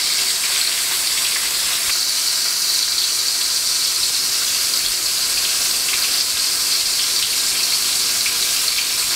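Butter and olive oil sizzling around basa fish fillets shallow-frying in a pan: a steady hiss with faint crackles.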